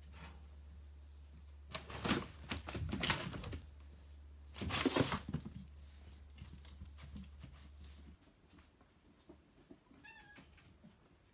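Cats playing around a pop-up nylon cat tent: two bursts of fabric rustling and scuffling, about two and five seconds in, then a faint short cat trill near the end.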